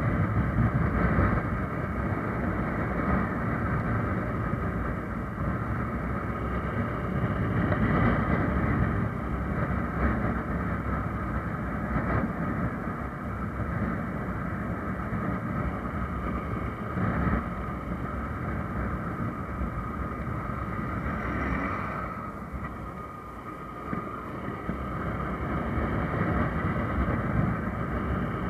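Motorcycle engine running while riding along a road, mixed with wind and road noise. The sound drops for a couple of seconds about three quarters of the way through, then builds again.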